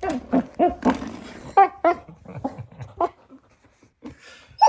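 Puppy barking in a quick run of short, high yaps while playing at a door stopper, then a pause of about a second and a half before one more yap near the end.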